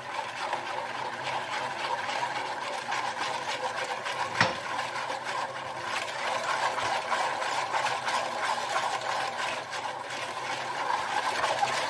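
Small coil-spring hand whisk beaten fast through a yeast, sugar, warm water and oil mixture in a plastic basin, making a steady rapid clatter and swish as the yeast and sugar dissolve. A single sharp knock comes a little over four seconds in.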